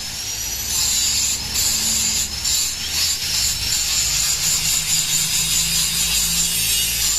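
Continuous abrasive scraping from a power tool, with a thin whine that slides in pitch and a low hum underneath.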